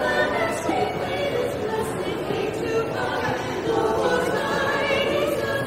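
A vocal group singing in harmony, several voices sustaining and moving between chords together.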